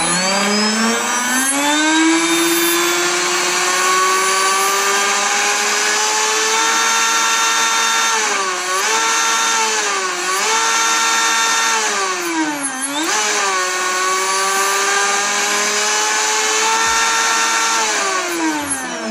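Brushless motor and drive shaft of a Joysway US-1 RC boat on a 4S LiPo, run out of the water: a high whine spins up over the first couple of seconds, holds steady with three short throttle dips in the middle, and winds down near the end. The motor is running after its connections were repaired, and the tune-up is judged much better.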